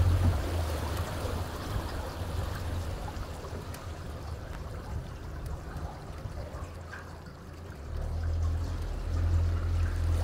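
Water rushing and splashing along the side of a moving boat, with the low steady hum of the boat's motor, strong at first, fading almost away, then coming back strongly about eight seconds in.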